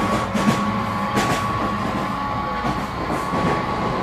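HO scale model steam passenger train running past on layout track: wheels clicking over the rail joints, with a steady high hum running underneath.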